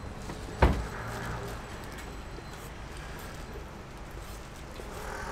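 A single sharp knock a little over half a second in, over steady background noise.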